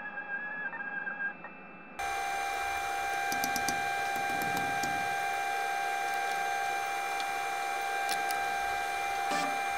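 Electric drive motor of a Cortini L300 CNC mill whining as the machine is run back and forth. The whine wavers quietly at first, then turns louder and steady about two seconds in, with a few faint clicks.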